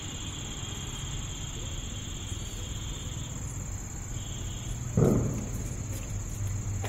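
Crickets trilling steadily at a high pitch, with a second, lower trill for the first few seconds and again briefly just after four seconds. A brief thump about five seconds in.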